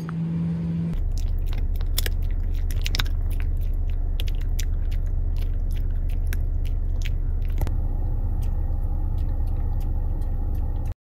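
Steady low road rumble inside a moving car's cabin, with irregular light clicks over it; it cuts off suddenly near the end.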